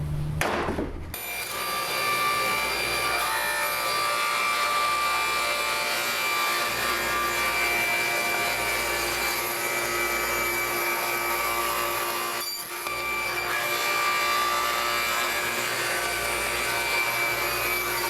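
Power saw running and cutting through a piece of wood in one long steady cut, starting about a second in, with a brief dip about twelve seconds in before it carries on.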